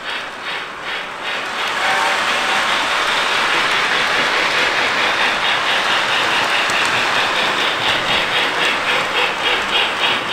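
Lionel Hogwarts Express O-gauge model steam locomotive running round the track, its onboard sound system giving a steady steam hiss with a rhythmic chuff of about three to four beats a second that grows clearer toward the end.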